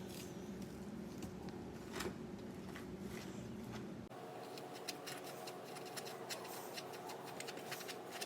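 A spoon stirring a stiff flour-and-conditioner mixture in a bowl: faint, irregular clicks and scrapes of the spoon against the bowl.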